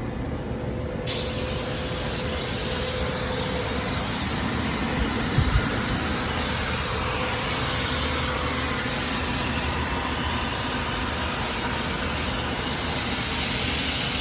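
Matsumoto Kikai MP-250B coolant circulation unit running: a steady mechanical hum and rush. About a second in, a higher hiss comes in with a short rising whine, and a couple of low knocks follow about five seconds in.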